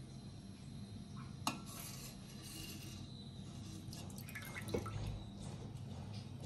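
Perforated stainless steel skimmer working through milk in a steel pot, lifting off the cream layer: faint liquid drips and splashes, with two light metallic clinks about 1.5 and 5 seconds in.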